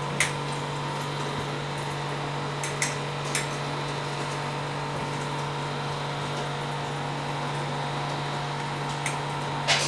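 Steady appliance hum running throughout, with a handful of short sharp clicks of a knife striking a plate as garlic is chopped, the loudest near the end.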